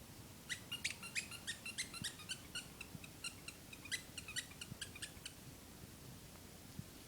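Squeaky toy ball squeaked over and over in quick succession, about five short high squeaks a second, for roughly five seconds before it stops.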